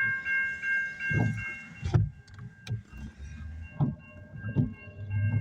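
Railroad crossing bell ringing in rapid repeated strokes, fading after about two seconds and growing louder again near the end, over irregular low thumps.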